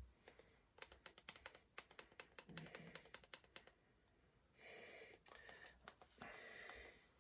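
Faint quick clicking of remote-control buttons pressed over and over to scroll a menu, followed by two short breathy rushes like nasal exhales near the microphone.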